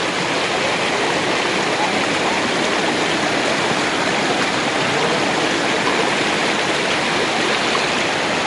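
Steady rushing of water from a stream at a running waterfall.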